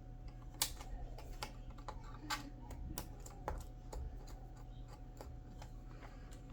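Small precision screwdriver working the screws of a laptop's internal battery, with light, irregular clicks and ticks of the metal bit on the screw heads.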